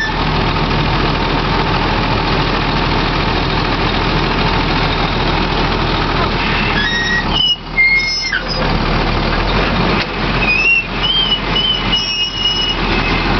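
Heil Durapak Python side-loading garbage truck running steadily at idle while its automated grabber arm works, with short high squeaks a little after 7 s and again from about 10 to 12.5 s.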